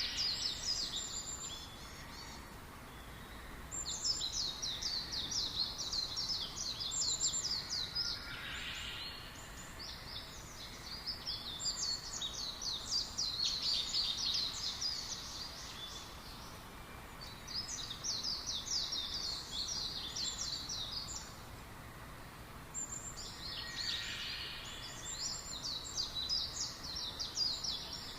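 Birds chirping in bouts of rapid, high, quick notes lasting a few seconds each, with short pauses between. A steady low background hiss runs underneath.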